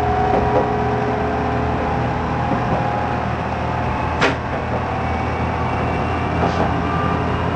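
Diesel railcar running along the line, heard from the driver's cab: a steady engine and running-gear drone with a low hum and a faint held whine. A single sharp click sounds about four seconds in, and a weaker one a couple of seconds later.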